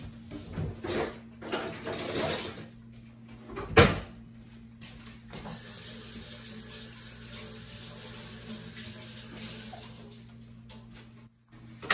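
Kitchen tap running into a sink for about five seconds, preceded by a few clatters and one sharp knock about four seconds in. A low steady hum sits underneath.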